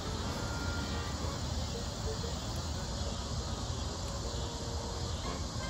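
Steady evening outdoor ambience: insects chirring, over a steady low rumble.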